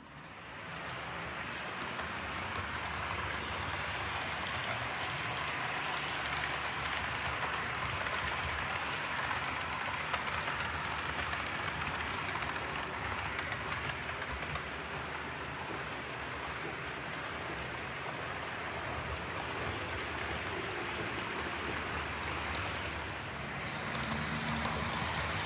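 OO gauge model diesel locomotive hauling a rake of coaches along the layout's track: a steady rolling hiss of wheels on rail and the motor, growing a little louder near the end as the train comes closer.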